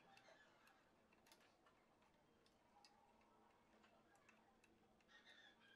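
Near silence with faint, irregular small clicks and ticks of wire leads and plastic connectors being handled as they are plugged into a printer's mainboard.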